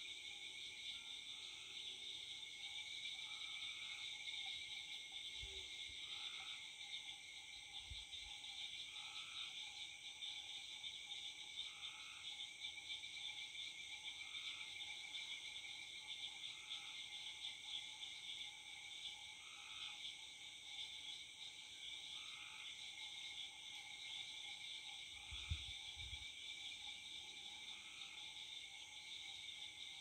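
Evening chorus of crickets and other insects, a steady high-pitched drone, with frogs trilling steadily lower down. Through it a nightjar calls faintly over and over, about every three seconds, and a few soft low thumps come and go.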